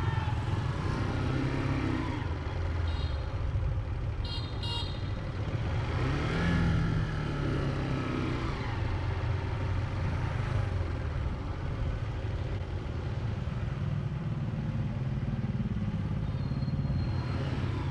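Motorbike riding through town traffic: steady engine and road rumble, with a few short horn beeps between about three and five seconds in.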